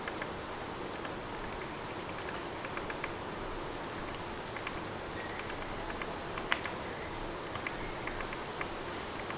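Steady rain ambience: an even hiss of falling rain with scattered sharp drips, and short, very high chirps recurring every second or so.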